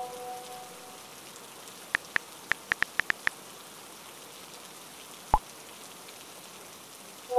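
Smartphone keyboard clicks, about eight quick taps in just over a second, as a short chat message is typed. About two seconds later comes a single short pop as the message sends. A steady rain-like hiss runs underneath, and the tail of a message chime fades out in the first second.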